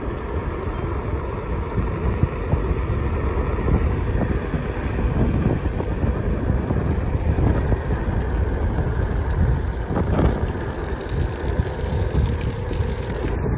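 Wind buffeting a moving microphone: a steady low rumble that rises and falls, with no distinct events.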